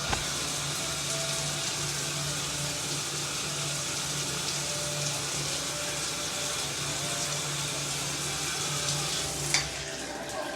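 Shower running: a steady hiss of spraying water with a low hum underneath. A sharp click comes about nine and a half seconds in, after which it is quieter.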